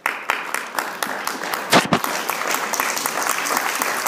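Audience applauding, starting suddenly and going on steadily, with a few louder claps close by near the middle.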